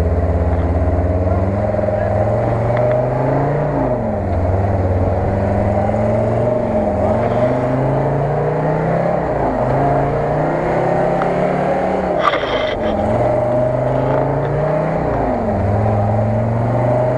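Off-road 4x4 engine revving up and falling back again and again, about six surges, as the vehicle struggles in a flooded bog rut with its wheels churning water and mud. A short sharp noise cuts in about twelve seconds in.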